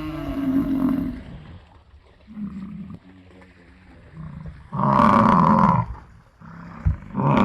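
Gaur (Indian bison) bellowing: a long call that ends about a second in, a few low grunts, then a loud bellow of about a second midway and a shorter one near the end. A sharp knock comes just before the last bellow.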